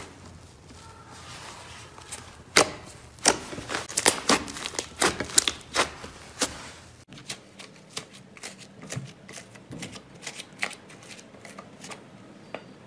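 Fingers poking and pressing a thick, cream-coloured slime, giving sharp crackling clicks and pops several times a second as air pockets in it burst. About seven seconds in the background changes and the clicking continues, sparser.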